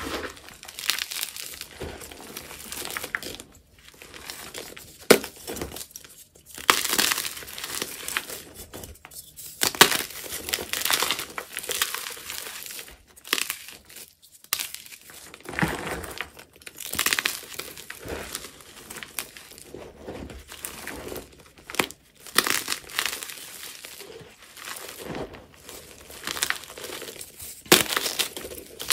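Hands crushing blocks of SPRI gym chalk mixed with purple Holi powder: irregular crunching and crumbling as the chunks are squeezed apart, with sharp snaps now and then as harder pieces break.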